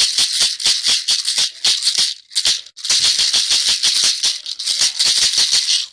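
BBs rattling inside a plastic medicine bottle shaken fast, like a maraca, stopping briefly a little over two seconds in and then going on.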